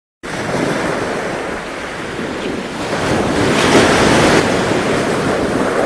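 Rushing water and wind as a kiteboard cuts through the sea surf. The sound is a steady loud rush that swells to its loudest a little past halfway.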